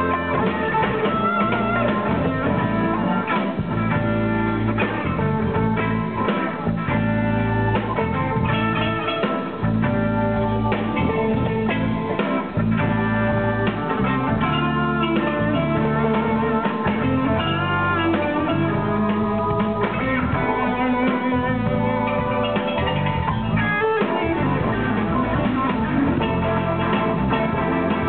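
A live band playing an instrumental, with an electric guitar taking the lead in bending, blues-inflected lines.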